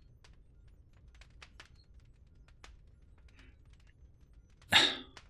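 Quiet pause with a few faint, scattered clicks, then one short, sharp breath drawn in close to the microphone about four and a half seconds in.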